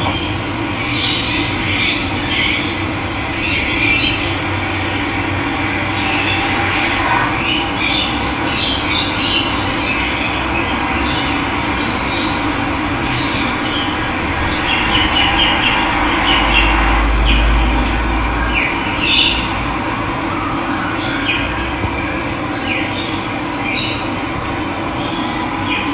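Steady rush of running water, with wild birds chirping and calling over it in short, scattered bursts.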